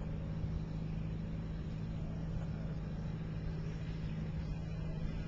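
A steady low drone of a running motor, one unchanging pitch throughout.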